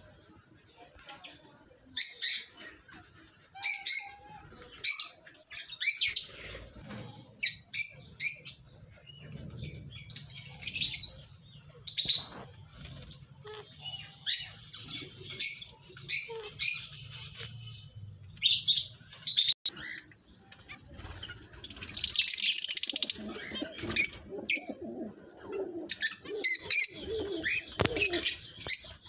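Small cage birds in an aviary chirping: short, high chirps repeat every second or so, with a longer, denser stretch of chirping about two-thirds of the way through.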